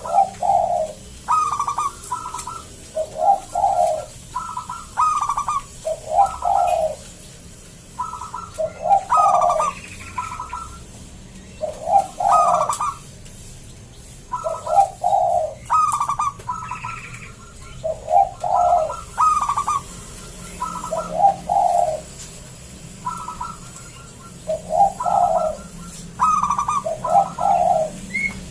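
Zebra dove (perkutut) singing its cooing song in a thick, full voice. The same phrase repeats about every three seconds, some ten times, each a few quick higher notes followed by deeper rolling notes.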